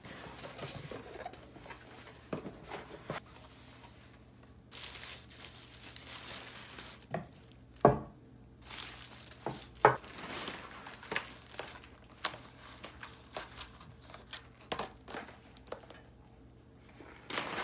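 Honeycomb kraft-paper packing crinkling and rustling as groceries are lifted out of it, with a few sharp knocks of items set down on a hard countertop, the loudest two about eight and ten seconds in.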